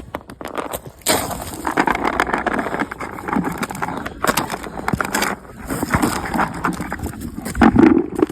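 Crunching and rustling through icy snow and brush, with many sharp snaps and cracks. A brief low sound near the end is the loudest moment.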